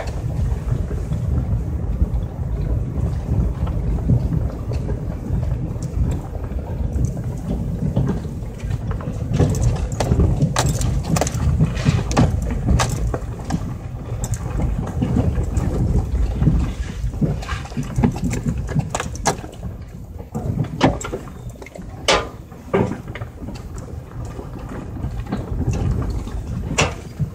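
A truck driving slowly over a rough, rutted dirt trail, heard from inside the cab: a steady low rumble of engine and tyres, with knocks and rattles from bumps, many of them from about nine seconds in.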